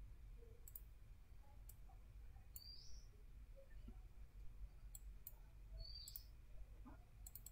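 Faint computer mouse clicks, several scattered singly and in close pairs, over a low steady hum, with a few short high rising chirps.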